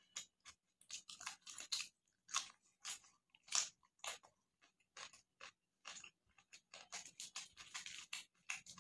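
A person chewing and crunching a mouthful of food eaten by hand, with rice, chicken curry and raw greens on the plate, in many short, irregular bursts.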